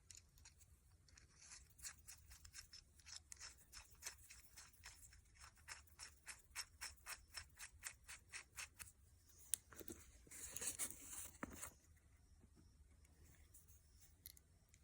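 Faint hand-tool work in an engine block's head-bolt hole during a thread-insert repair: a run of evenly spaced clicks, about three or four a second, then a short scraping rush near the end.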